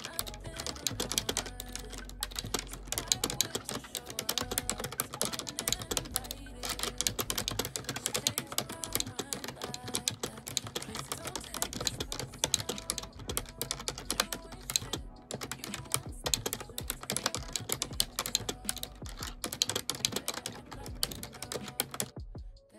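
Fast, continuous typing on a computer keyboard, many irregular keystrokes a second, stopping abruptly just before the end.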